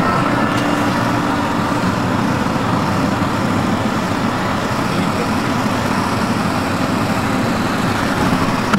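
Steady road and engine noise of a car driving along.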